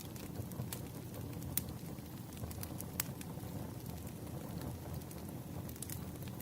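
Wood fire crackling: a steady low rumble of burning with a few scattered sharp pops, the loudest about a second and a half and three seconds in.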